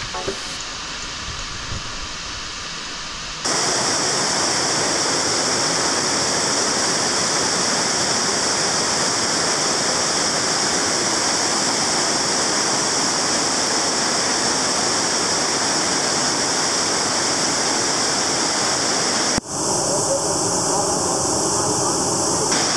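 Steady rushing roar of a canyon waterfall. It cuts in suddenly about three and a half seconds in, and breaks briefly near the end before carrying on.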